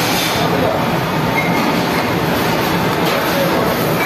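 Steady roar of a commercial kitchen's high-pressure gas burner under a pan of simmering curry.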